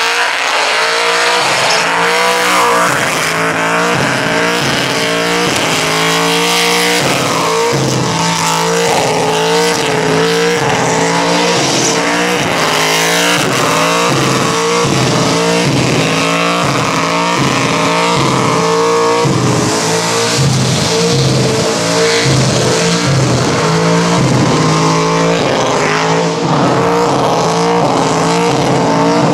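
LS1 5.7-litre V8 in a VP Commodore doing a burnout: the engine is revved hard, its pitch rising and falling over and over as the throttle is worked. Tyre screech runs underneath.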